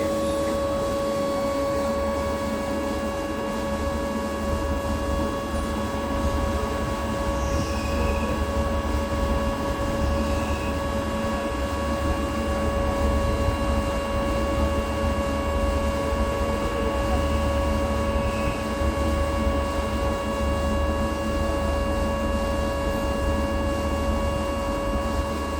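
CNC lathe running steadily, a constant whine with a low rumble underneath, while turning a 316 stainless steel 1/2-inch NPT part.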